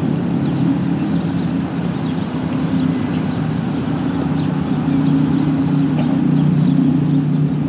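Steady low rumble of suburban road traffic, with birds chirping faintly and briefly over it.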